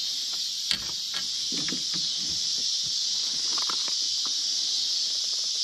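Steady high-pitched chorus of night insects, crickets among them, with a sharp click about two-thirds of a second in and a few soft knocks and rustles of handling.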